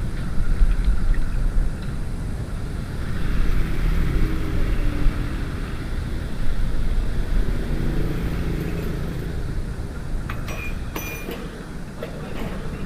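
Steady low rumble of motor traffic, with a few sharp metallic clinks near the end.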